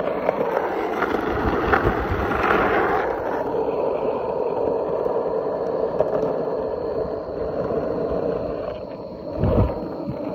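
Skateboard wheels rolling on asphalt: a steady rolling noise that eases off about eight seconds in, with a low thump near the end.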